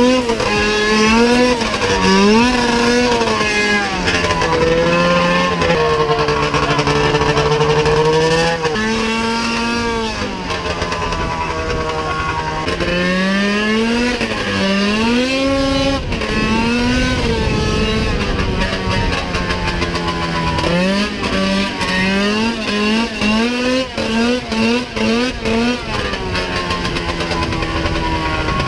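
100-horsepower two-stroke snowmobile engine swapped into a John Deere Gator, revving up and down again and again under throttle. Near the end it gives a quick string of short throttle blips.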